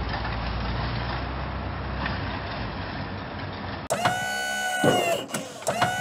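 Cartoon sound effect of a heavy crane truck's engine rumbling steadily. About four seconds in it gives way to a motor whine that rises, holds and falls, twice, as the boom is raised.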